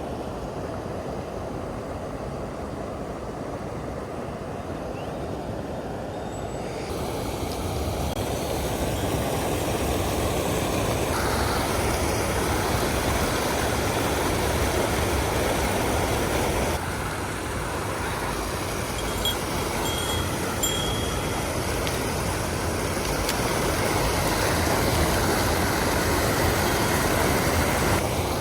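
Mountain stream water rushing over rocks, a steady noise that shifts abruptly in loudness and tone several times and grows louder about a quarter of the way in.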